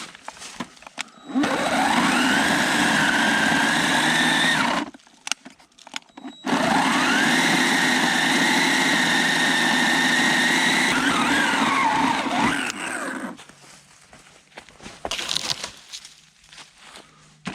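Electric chainsaw running in two bursts, one of about three and a half seconds and one of about six seconds. Each starts with a rising whine as the motor spins up, and the second winds down in a falling whine near the end.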